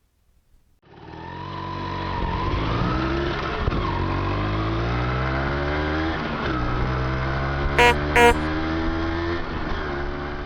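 Motorcycle engine running, its pitch rising and falling, with two short beeps about eight seconds in.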